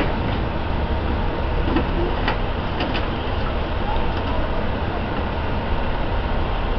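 Steady low rumble of an idling fire engine, with a few faint knocks and clicks in the first three seconds.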